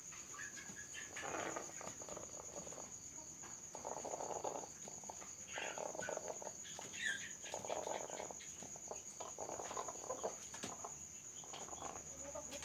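A rooster sick with ngorok, a snoring respiratory illness, makes short, low, throaty sounds every second or two while it is held and force-fed. Crickets trill steadily and high-pitched behind it.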